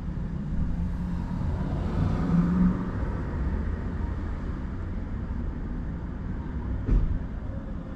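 Street traffic at an intersection: cars passing over a steady low rumble, one passing loudest about two and a half seconds in. A single short knock near the end.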